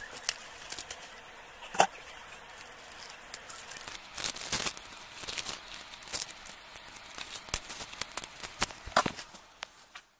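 Fresh corn husks being torn and peeled off the ears by hand: an irregular run of crisp tearing and crackling, with a couple of sharper snaps about two seconds in and near the end.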